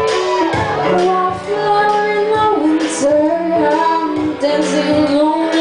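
A woman singing a melody into a microphone, backed live by violin and keyboard over a steady beat of about one pulse a second.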